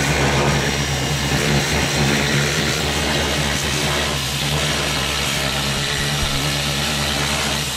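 Pressure washer running steadily: a motor's low, even hum under the hiss of its water jet spraying into a car's engine bay to rinse off degreaser.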